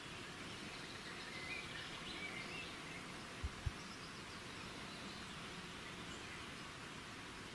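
Faint outdoor background noise with a few short, high bird chirps in the first three seconds. Two soft low thumps come close together about halfway through.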